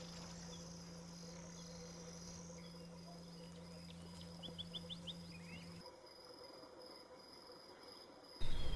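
Faint night chorus of crickets and other insects, steady high trilling over a steady low hum that stops about six seconds in. About halfway a quick run of five short high chirps sounds. Near the end it cuts suddenly to louder bird calls.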